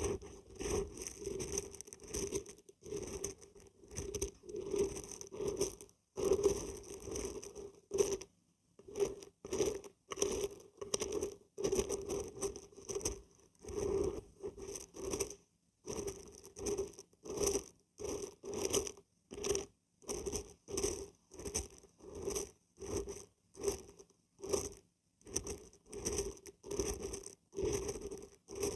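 Dried beans and barberries shaken, rattling in repeated strokes about one or two a second, with brief pauses.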